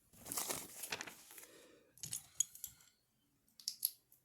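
Small plastic LEGO pieces being handled and pressed together: a rustling clatter of bricks for the first second and a half, then a few separate sharp clicks.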